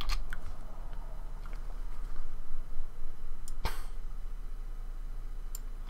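A few isolated clicks from a computer keyboard and mouse, the sharpest about three and a half seconds in, over a low steady hum.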